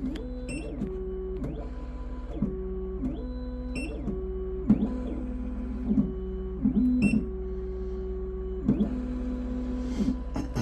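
Triton computerized key machine cutting a high-security key: its stepper motors whir in steady tones that change pitch every second or so as the carriage moves the key past the cutter, with short rising and falling whines and scattered clicks between moves over a low steady hum.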